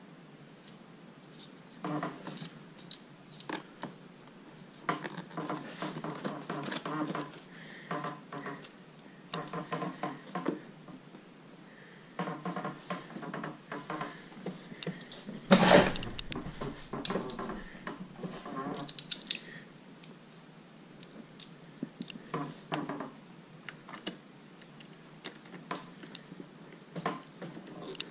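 Hard parts and tools being handled: intermittent clicks and clattering, with one loud knock about halfway through.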